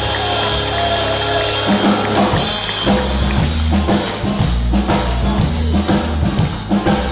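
Live swing band with horns, guitar, keyboard and drum kit playing loudly. A held chord gives way, about two seconds in, to drums and bass driving a steady up-tempo beat.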